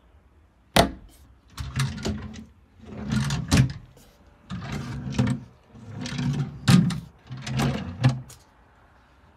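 A wooden cabinet door knocks once about a second in. Then wooden drawers slide open and shut five times, wood sliding on wood, several strokes ending in a sharp knock as the drawer stops.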